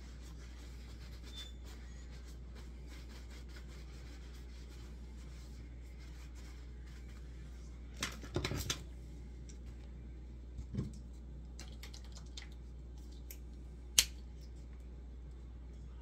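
Small handling noises over a steady low hum: a few light rustles and clicks, a short cluster about halfway through and a single sharp click near the end.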